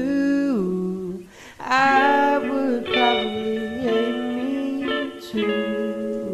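A man singing the closing phrase of an acoustic cover song over plucked guitar. The voice glides down in pitch, breaks off briefly about a second and a half in, then holds drawn-out notes with vibrato.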